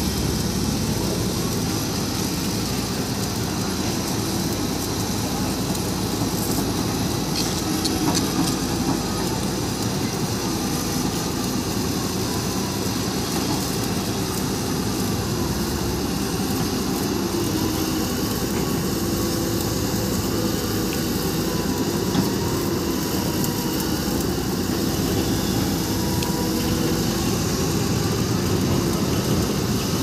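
Tata Hitachi EX210LC excavator's diesel engine running steadily while the machine works its boom, arm and bucket, with a faint whine that rises and falls.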